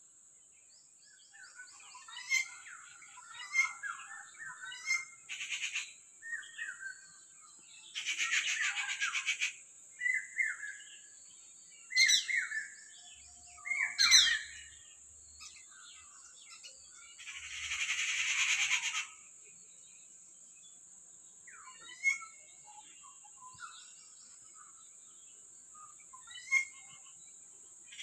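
Several wild birds calling in the trees: sharp chirps and short falling whistled notes, with two longer harsh, rasping calls about eight and eighteen seconds in. A faint steady high-pitched whine runs underneath.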